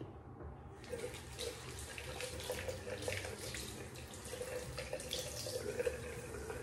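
Bathroom tap running into a sink, starting about a second in, with an uneven splashing as the shaving soap puck is rinsed off under it.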